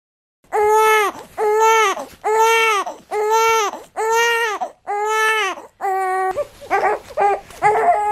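Newborn baby crying: a run of loud, even wails about one a second, breaking into shorter, choppier cries near the end.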